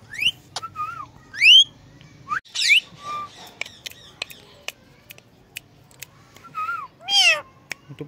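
Indian ringneck parakeet giving a string of quick rising whistles and chirps, the loudest about one and a half seconds in, then two harsher calls near the end.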